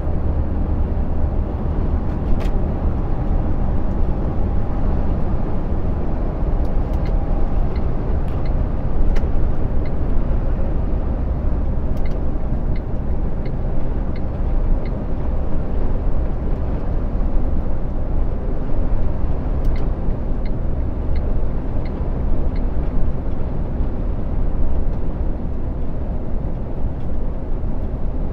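Truck cab at road speed: a steady low engine drone with road noise, heard from inside the cab. Two short runs of faint, evenly spaced ticks, about one and a half a second, come in about 12 s and 20 s in.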